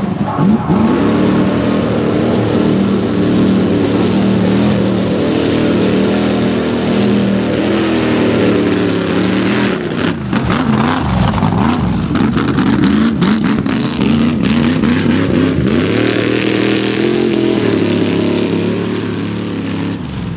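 Chevrolet pickup mud racing truck's engine revving hard as it races through the mud, its pitch climbing and dropping over and over. A stretch of crackling noise sits over the engine about halfway through.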